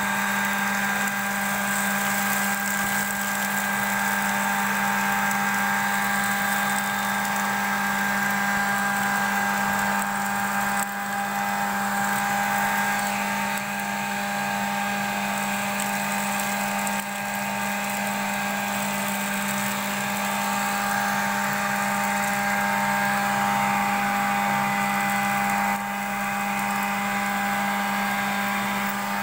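Homemade paint-bucket vacuum cleaner running steadily: a motor whine with a low hum over the rush of air through the hose as the nozzle sucks up crumbs from the floor. The level dips briefly a few times.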